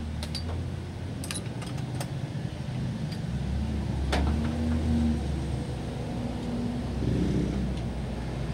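Isuzu 4JA1 diesel engine running with a steady low hum that swells and eases, with a few sharp metallic clicks in the first half and one about four seconds in.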